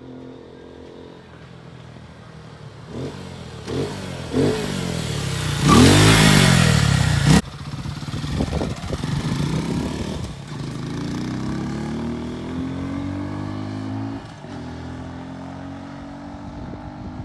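American Lifan KP Mini 150cc motorcycle engine revving in a few short blips, then a loud burst of throttle that cuts off sharply about seven seconds in. It then pulls away with rising pitch, drops briefly near the end as it shifts up, and rises again.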